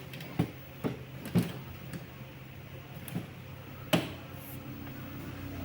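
Scattered knocks and clicks of a portable folding table's parts being handled and set up: about six sharp ones, the loudest about four seconds in.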